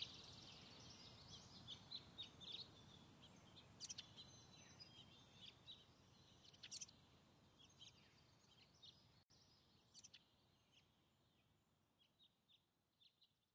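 Faint birds chirping over a low background hiss, all of it fading out gradually toward silence.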